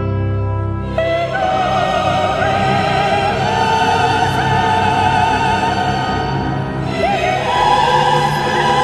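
Background classical music with a singing voice holding long notes with vibrato; new notes come in about a second in and again about seven seconds in.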